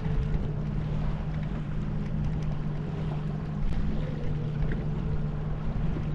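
Fishing boat's motor running steadily at slow trolling speed, a low even hum, with wind and water noise over it.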